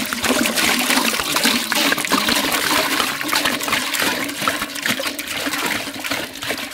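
Water pouring and splashing steadily into a cooking vessel, easing a little near the end.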